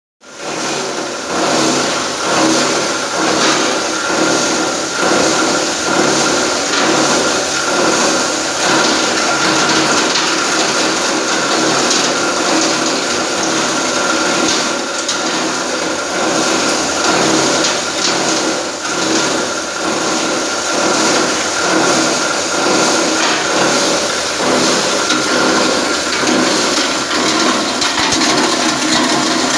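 Plastic bottle grinder running: a steady machine hum from its motor and cutting rotor, with a constant clatter and crunch of plastic being chopped.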